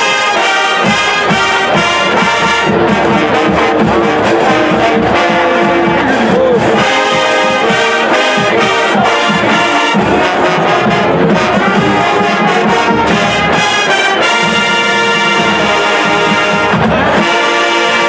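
Marching band playing, led by trumpets and sousaphones with a full brass sound. About fourteen seconds in, the band moves into long held chords before moving on again near the end.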